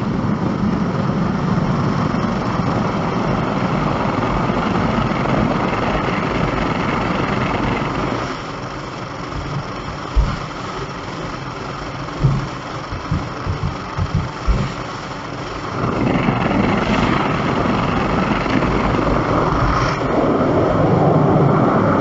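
Car driving: steady road and engine noise. It drops quieter for several seconds around the middle, with a few low thumps, then rises again.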